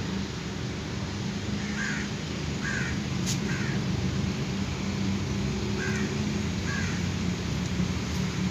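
A crow cawing in short harsh calls, three in quick succession and then two more a few seconds later, over a steady low rumble and hum.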